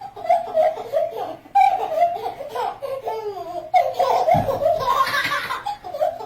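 A baby laughing in a run of high-pitched giggles and squeals.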